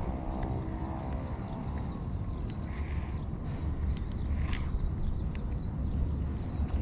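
Pond-side outdoor ambience: a steady high-pitched insect drone over a constant low rumble, with a few faint clicks.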